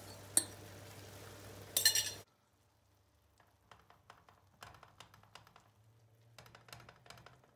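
A metal fork clicking against a bowl as beaten egg is poured into a frying pan, with a short clatter near two seconds in. After that, faint scrapes and taps of a silicone spatula spreading the egg through the cabbage and onions in the non-stick pan.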